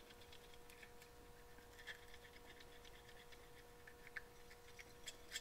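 Near silence: faint, scattered small clicks of small carburetor parts and tools being handled, over a faint steady hum.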